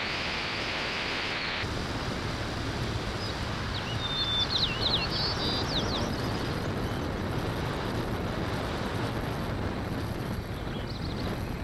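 Wind buffeting an outdoor microphone, a steady rushing noise, with a few short high bird chirps about four to six seconds in.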